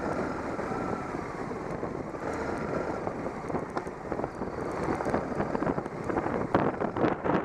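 Motorcycle riding along a dirt trail: the engine runs under steady wind noise on the microphone. A few sharp knocks come near the end.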